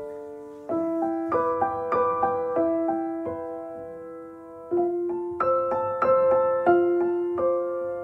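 Background piano music: unhurried notes struck one or a few at a time and left to ring out.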